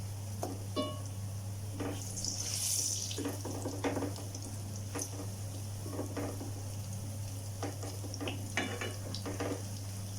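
A kitchen utensil tapping and scraping against a frying pan in a dozen or so short clicks as pieces of ripe plantain batter frying in hot oil are turned over. There is a brief sizzle of the oil a couple of seconds in, over a steady low hum.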